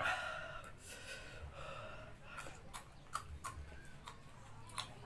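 A man gasping and breathing hard through his mouth from the burn of raw red chilies, with a loud strained gasp right at the start, then heavy breaths. A few sharp clicks come about three seconds in and again near the end.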